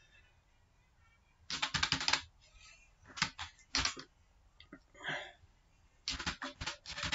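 Computer keyboard typing: a quick run of keystrokes about a second and a half in, a couple of single keys around three to four seconds, and another quick run near the end.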